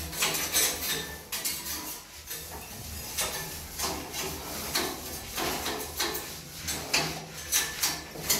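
Paint rollers on long wooden poles being worked over a wall, giving irregular clicks and clatters several times a second, over a faint low hum.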